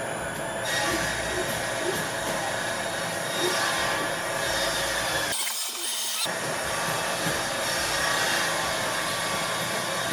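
DJI Mavic Pro drone's propellers and motors running in flight after take-off, a steady buzzing hum with a brief break about five seconds in.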